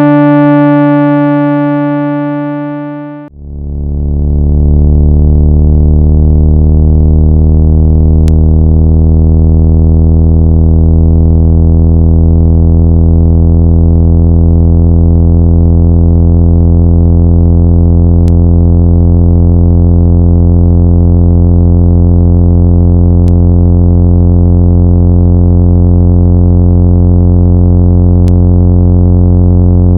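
Synthesized speaker-cleaning tone played loud, meant to vibrate water and dust out of a phone speaker. A steady buzzy tone fades out about three seconds in, and a lower, buzzier tone fades in and then holds steady.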